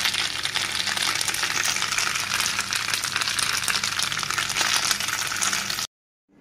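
Spaghetti with spinach and shrimp frying in a pan: a steady, dense, crackling sizzle that cuts off suddenly near the end.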